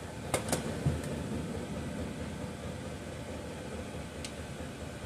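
Steady fan-like hum in a workshop, with two sharp clicks and a dull knock near the start and another click about four seconds in, from small parts or tools being handled.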